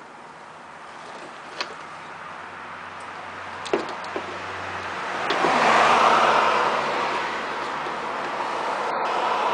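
A few light clicks of a screwdriver working the small screws of a pickup's plastic inner fender liner. About five seconds in, a broad rushing noise swells up and stays loud.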